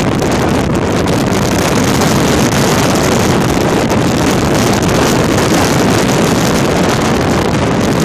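Wind buffeting the phone's microphone: a loud, steady rumble with no gaps.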